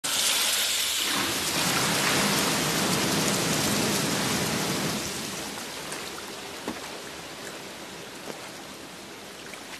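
Many large taps gushing water into a big bath, a dense splashing rush that grows gradually quieter from about halfway through.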